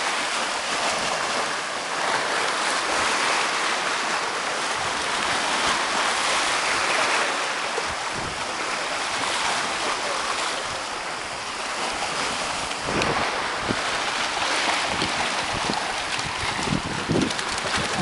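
Rough surf churning and washing over rocks, a steady rushing hiss of seawater. In the second half, wind buffets the microphone in low, uneven gusts.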